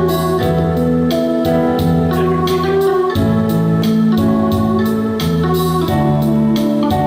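A band playing an instrumental introduction led by electronic organ chords held over a steady beat.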